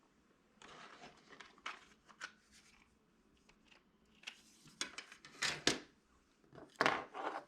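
Hands working at a small plastic door jamb switch to take it apart: irregular clicks, taps and short scraping and rustling sounds, loudest a little past halfway and near the end.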